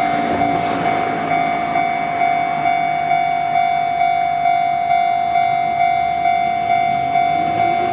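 Japanese railway level-crossing warning bell ringing steadily in even pulses, about two a second, with a train's running noise beneath it.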